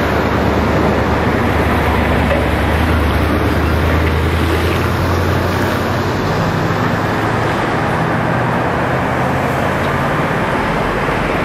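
ND55 diesel locomotive approaching at low speed, its low engine drone growing stronger as it draws near, over a steady rushing noise.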